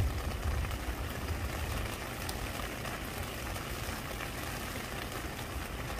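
Steady rain falling, an even hiss with scattered light drip taps, over a low rumble that is strongest in the first two seconds and then settles.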